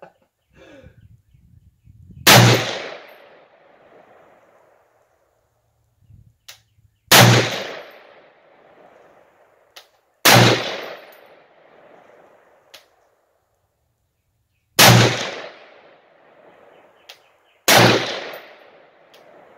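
Five rifle shots from an M1A, a semi-automatic 7.62x51 mm rifle, fired slowly, two and a half to five seconds apart. Each shot is a sharp crack followed by an echo that dies away over about a second.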